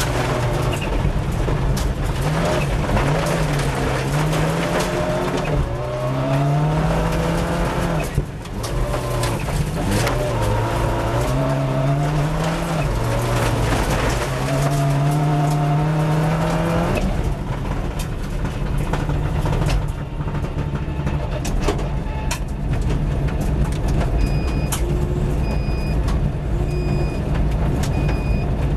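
Rally car engine heard from inside the cabin, revving hard and rising and falling in pitch with gear changes and lifts on a gravel stage, with sharp clicks of gravel striking the car. About two-thirds of the way through it settles into a steadier, lower run, and near the end short high beeps sound about once a second.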